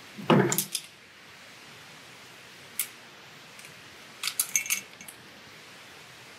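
Cable-tie tensioning gun being handled and worked on a nylon cable tie: a knock as the tool is picked up off the table about half a second in, a single sharp click a couple of seconds later, and a quick cluster of sharp clicks about four seconds in as the gun grips and tightens the tie.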